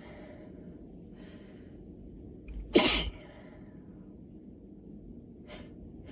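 A woman's single loud allergy sneeze about three seconds in, her voice dropping in pitch through it, with quieter breaths before and after.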